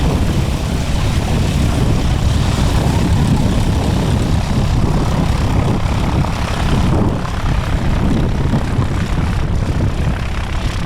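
Light propeller aeroplane's engine running close by, a steady dense drone that eases a little about seven seconds in.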